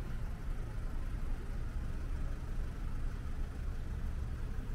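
Steady low rumble of car engines and road traffic, with no single event standing out.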